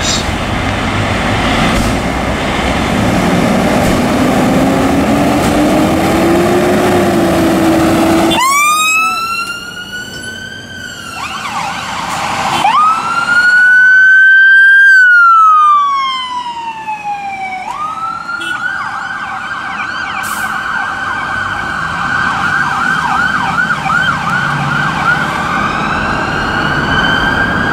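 Fire engine diesel engines pulling away, then an electronic siren starting about eight seconds in with rising and falling wails, loudest midway as the appliance passes. It then switches to a fast repeating yelp that slowly fades.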